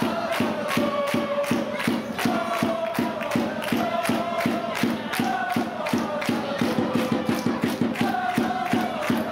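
Supporters chanting and singing in unison to a steady drum beat of about four strokes a second.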